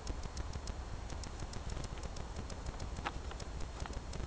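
Quiet background: a fast, even ticking at about five ticks a second over a steady low rumble.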